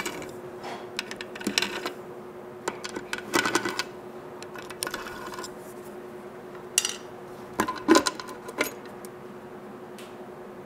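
Scattered metallic clicks, clinks and rattles as valve cover bolts are undone with a T-handle driver and the aluminum valve cover is worked loose and lifted off the engine. A steady low hum runs underneath.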